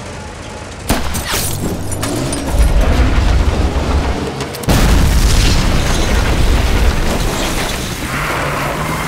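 Film battle sound effects: a sharp rifle shot about a second in, then heavy explosion booms with a long low rumble, the loudest blast starting about halfway through.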